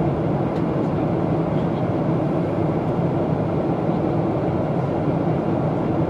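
Steady cabin noise inside a Boeing 737 airliner in flight: an even low drone that holds the same level throughout.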